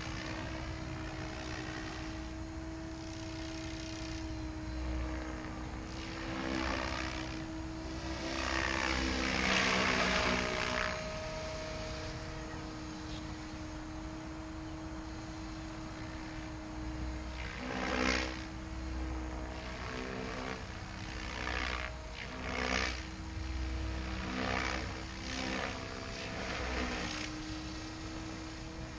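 Goblin 700 radio-controlled helicopter flying. A steady hum comes from its rotor and drive, with repeated rising and falling whooshes of the blades as it makes passes. The loudest swell comes about ten seconds in, a sharp pass near eighteen seconds, and several shorter swells near the end.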